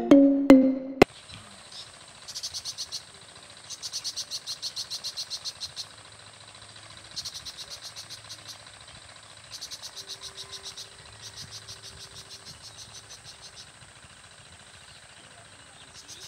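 Insects calling: a steady high whine with bouts of rapid pulsed chirping, about six or seven pulses a second, each bout lasting one to two seconds. The last notes of a short music jingle cut off about a second in.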